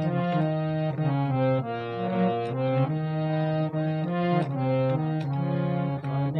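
Harmonium playing a melody: steady reedy notes changing every half second or so over a held low note.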